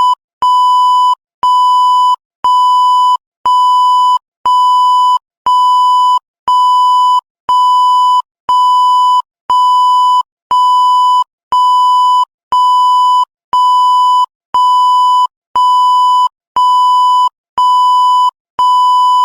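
A steady, repeating beep tone: identical high-pitched beeps about once a second, each lasting most of a second with a short gap between, and a faint click as each one starts.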